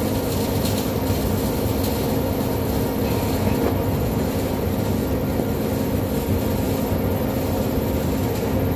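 Steady drone of factory machinery in a large steel workshop hall, with a constant low hum under a wide rushing noise.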